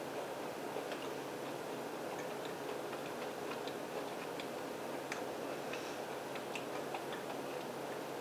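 Quiet chewing of dark mint chocolate studded with crispy mint bits: faint, irregular little clicks and crunches from the mouth, over a low steady room hum.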